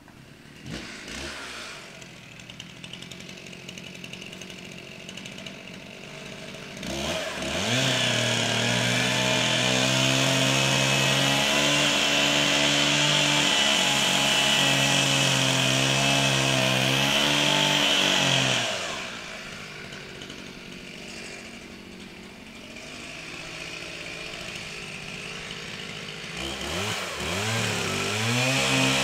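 Chainsaw idling, then revved to full throttle about seven seconds in and running steadily under load for about eleven seconds, cutting into the trunk of a large Engelmann spruce. It drops back to idle, then revs up again near the end.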